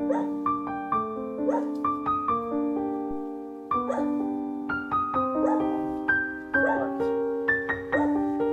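Background piano music playing a slow melody of held notes. A dog gives short barks several times underneath it.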